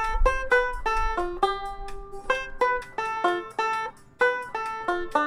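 Ome tenor banjo played solo: a quick melody of crisp plucked notes, each struck sharply and ringing briefly.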